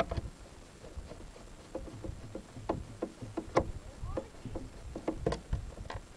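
Screwdriver turning a small screw into the plastic door-mirror housing, with irregular light clicks and knocks of metal on plastic as the screw is driven and the housing is handled.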